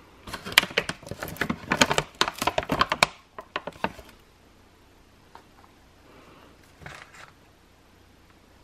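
Plastic laundry-pod pouch crinkling as it is handled and opened, dense for about three seconds, then a few scattered crackles.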